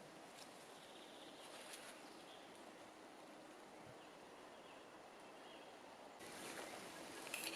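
Faint outdoor ambience picked up by the camera's built-in microphone, with a few soft, high, short sounds; about six seconds in the background noise steps up and grows louder and busier.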